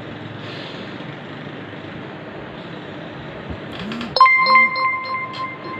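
Metallic chime ringing: struck sharply about four seconds in, then a few more quick strikes, its clear bell-like tone ringing on. Before it, only a steady low hiss.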